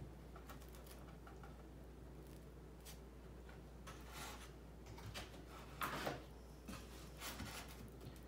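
Pine boards being shifted and lined up by hand on a workbench: a few light knocks and scrapes of wood on wood, the loudest pair about six seconds in, over a low steady hum.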